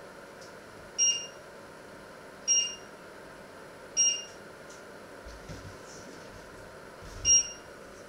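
Four short electronic beeps from a touch-control glass hob as its controls are pressed: three about a second and a half apart, then a fourth, the loudest, about three seconds later, over a steady hiss.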